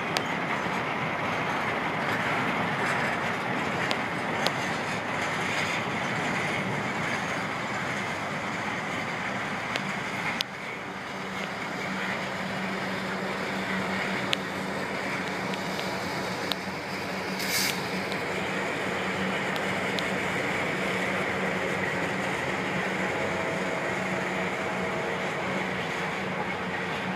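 Freight train of hopper cars rolling past: a steady rumble of steel wheels on rail with occasional sharp clicks. From about halfway through, a diesel locomotive running within the train passes, adding a steady low engine hum.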